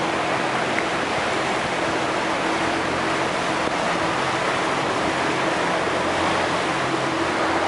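Water taxi motoring along a canal: a steady engine hum under the constant rush of water along the hull.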